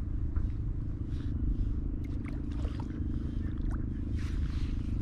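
Steady low rumble of wind on the microphone over open sea, with faint water lapping and small ticks against a kayak hull.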